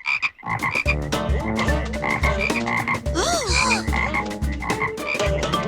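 An ice cream truck's sound system playing a weird, croaking, warbling tune over a pulsing low beat instead of a proper ice cream jingle: its rigged noise-makers are tuned wrong.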